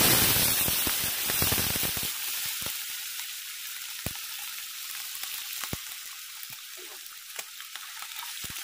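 Boiled pork pieces dropped into a kadai of hot oil: a loud burst of sizzling and spattering that dies down after about two seconds to a steadier, fainter sizzle with scattered pops and clicks.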